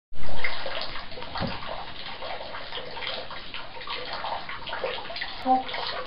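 African grey parrot splashing and flapping its wings in shallow bathwater in a tub, an irregular run of splashes that is loudest right at the start.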